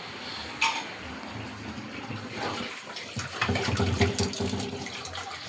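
Running water, with a sharp click about half a second in and clattering that grows louder around the middle.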